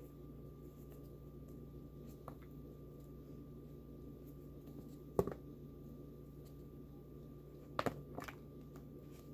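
Close-miked eating of a McDonald's Big Mac between bites: faint mouth sounds with a sharp click about five seconds in and a short run of clicks near the end, over a low steady hum.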